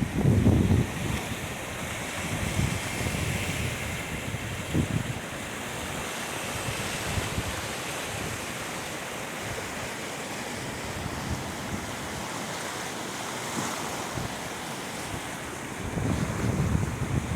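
Floodwater of a fast-running creek rushing past in a steady wash of noise, with wind buffeting the microphone in low gusts about the first second, briefly around the middle and again near the end.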